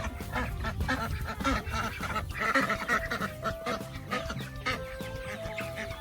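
Ducks quacking among chickens over background music with held notes, with a louder burst of quacking about two and a half seconds in.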